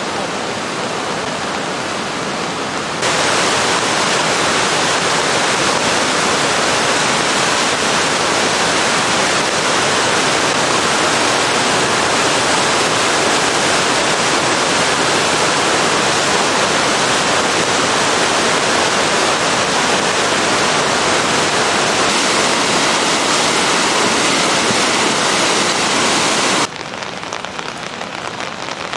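Swollen river in flood rushing as a loud, steady torrent; it grows louder about three seconds in. Near the end it gives way to a quieter steady hiss of rain falling on standing floodwater.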